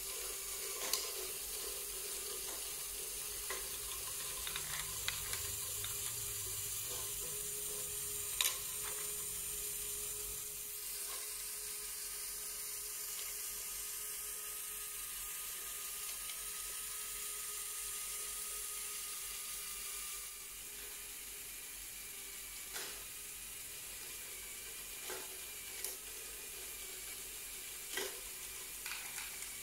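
Lego Technic great ball contraption module running: a steady hiss and whir of its electric motors and gearing under small plastic balls rolling along the tracks, with scattered sharp clicks as balls drop and knock against parts.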